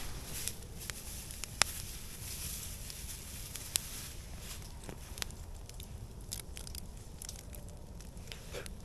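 Wood campfire crackling, with a few sharp pops from the burning logs, the loudest about one and a half and nearly four seconds in. Some close rustling and handling noise mixes in.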